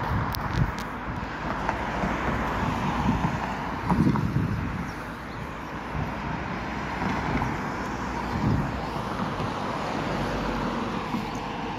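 Road traffic: cars passing on a city street, a steady rush of tyre and engine noise that swells loudest about four seconds in.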